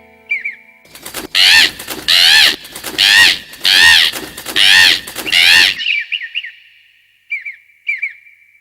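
Parrot squawking: six loud, harsh calls, each rising and falling in pitch and lasting under a second, with a few short chirps before and after.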